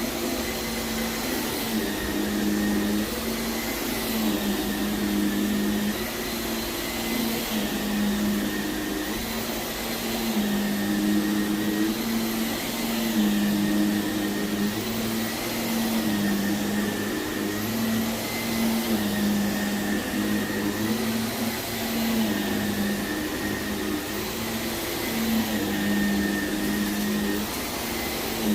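Vacuum cleaner running over heavily soiled carpet: a steady motor hum whose pitch shifts slightly every couple of seconds as it is worked across the pile.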